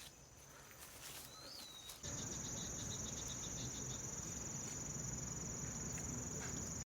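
Singing insects trilling steadily in a high, pulsing chorus. The chorus gets much louder about two seconds in and cuts off suddenly near the end.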